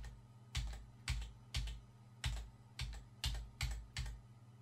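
Computer keyboard keys struck over and over, about two presses a second, each a sharp click with a low thud: the Ctrl+Z undo shortcut being repeated.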